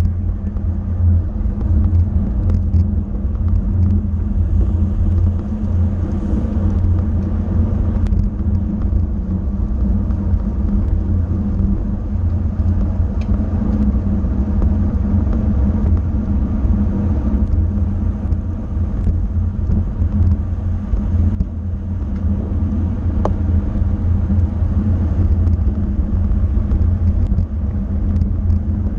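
Steady low rumble of wind and road noise from riding a road bike at race speed, with a few faint clicks.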